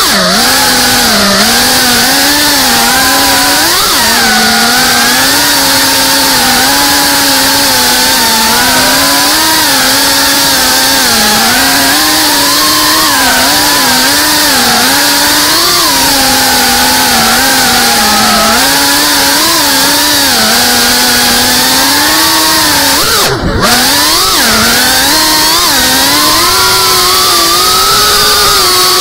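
Cinelog35 FPV quadcopter's motors and propellers with a steady, buzzing whine whose pitch keeps rising and falling as the throttle is worked, and a brief drop about 23 seconds in.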